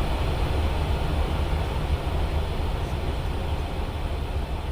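Steady cockpit noise of an Airbus A320 in flight: a constant rumble of airflow and engines, heaviest in the low end.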